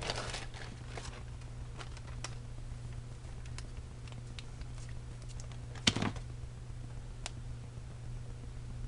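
Small clicks, taps and a brief rustle of scrapbook embellishments and paper being handled on a tabletop, with one sharper click about six seconds in, over a low steady hum.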